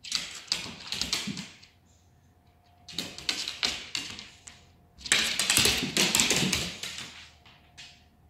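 Goldendoodle's claws and paws skittering and thudding on a hard floor in play, in three bursts of rapid clicking, the last the longest, with one more click near the end.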